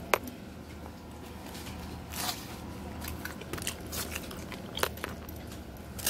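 Close-up eating sounds: chewing, with scattered sharp clicks and scrapes of a plastic fork working in a foam takeout container. The loudest click comes just after the start.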